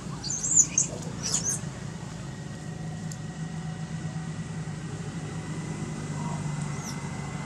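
Infant long-tailed macaque giving a few short, high-pitched squeaks in the first second and a half and faintly again near the end, over a steady low drone.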